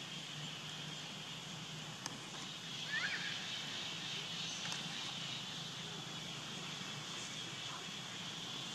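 Steady outdoor background: an even high hiss with a faint low hum under it. About three seconds in comes one brief high chirp or squeak, with a few faint clicks scattered through.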